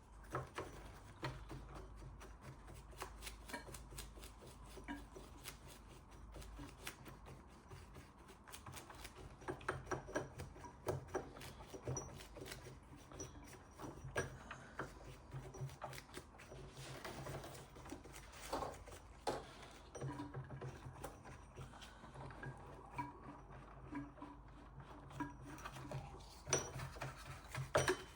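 A small brush scrubbing degreaser into a toy steam engine's metal parts: faint irregular scratching with small clicks and knocks, over a steady low hum.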